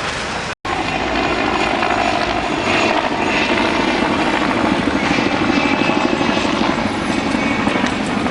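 Steady motor sound with a fast fluttering pulse, starting after a brief cut about half a second in and getting slightly louder partway through.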